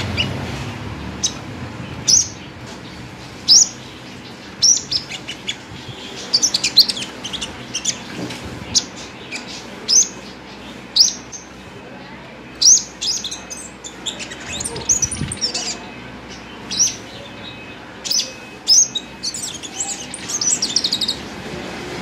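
A caged sunbird singing: short, sharp, high chirps and quick twittering runs come every second or so, with denser runs of rapid notes near the middle and again toward the end.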